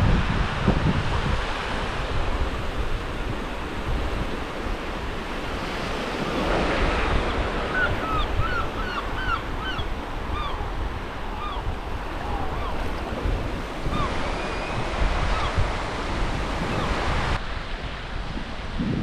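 Sea waves washing onto a pebble beach, with strong wind buffeting the microphone. From about seven seconds in, a gull gives a quick run of short repeated calls, with a few more calls later on.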